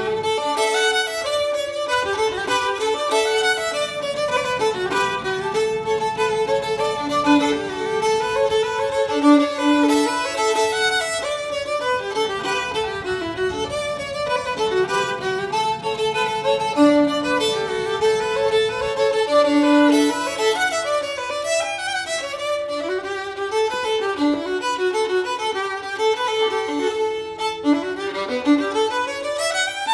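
Fiddle music: a solo violin playing a fast, lively tune in quick runs of notes, with now and then two notes held together.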